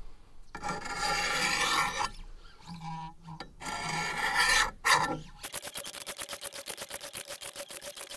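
Wicked Edge guided sharpener's 200-grit stones rasping along the rusty steel edge of an old sickle. A few long, slow strokes, then from about halfway through quick short strokes, about five a second, with a faint steady ring under them.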